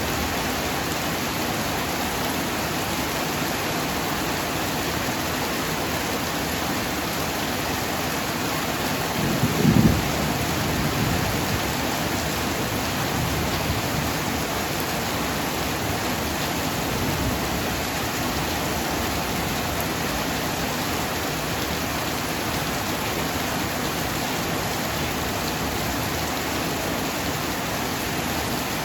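Heavy rain falling steadily, with a sudden clap of thunder about ten seconds in that rumbles low for several seconds after.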